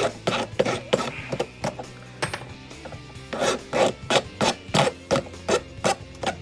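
Coarse hand file rasping over a small cast silver ingot in quick repeated strokes, uneven at first and then steady at about two to three a second, filing off the casting fins.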